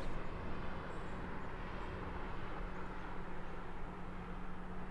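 Distant engine running steadily: a low hum with a rushing noise over it.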